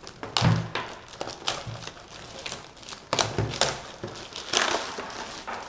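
Packaging being handled while a keyboard is unboxed: plastic and cardboard rustling and crinkling in a series of swishes, with a couple of dull knocks about a second in and around three seconds in.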